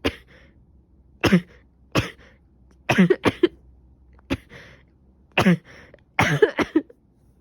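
A person with a cold coughing repeatedly, which the uploader takes to be a cold. Single coughs come about a second apart, then a quick run of three, then more single coughs and a run of several close together near the end.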